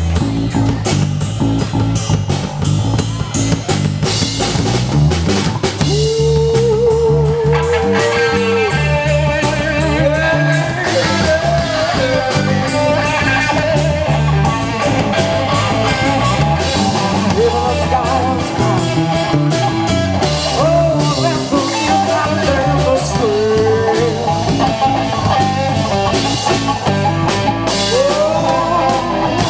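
Live blues-rock band playing a song, with drum kit and bass under a lead melody. The lead has bent notes and held notes with vibrato, the longest held about six seconds in.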